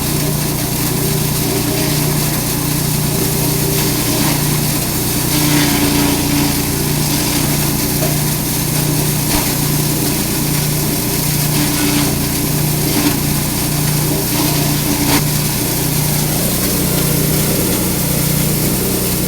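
Grass chopper machine running steadily, its motor humming with a slight pulse, and a few short sharp cracks as forage is cut.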